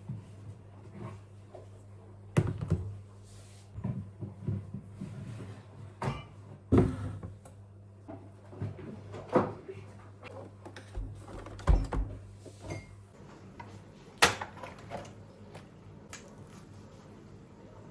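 Kitchen handling sounds: an irregular series of knocks and clunks of things being set down and cupboard doors opening and closing, over a steady low hum.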